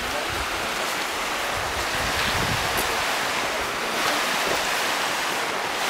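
A rocky mountain stream rushing steadily over boulders, with some wind buffeting the microphone.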